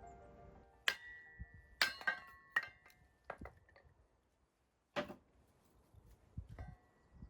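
A series of light clinks and knocks of hard objects, several leaving a short ringing tone, with a louder knock about five seconds in.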